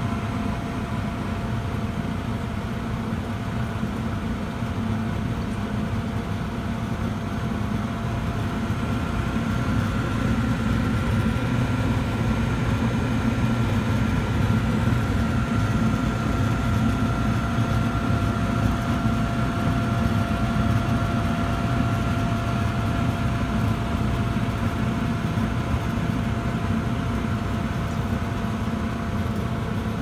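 Gibson/Nordyne gas furnace running steadily, with its motors giving a low hum and a thin steady whine. A second, higher whine joins about ten seconds in and fades out again after about twenty seconds. The furnace is working normally now that the failed D12 diode on the control board has been replaced and the 3 A fuse no longer blows.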